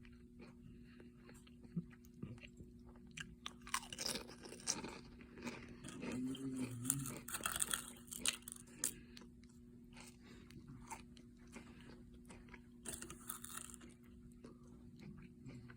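Someone chewing crunchy food close to the microphone: irregular crackly crunching, heaviest from about four to nine seconds in, with another short bout near thirteen seconds.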